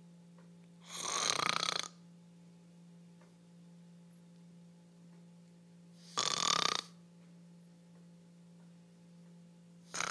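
A person snoring loudly, three snores about five seconds apart, the last one near the end, over a steady low hum.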